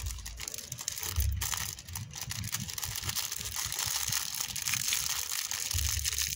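A thin plastic bag of airsoft BBs crinkling and rustling in the hands as it is pinched and opened. There are low rumbles about a second in and again near the end.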